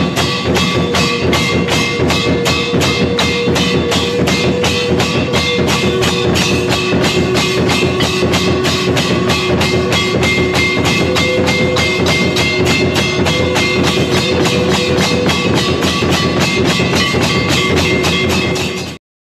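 Devotional aarti music: many hands clapping in an even beat of about three a second, with tambourine-like percussion over a few steady held tones. It cuts off suddenly at the very end.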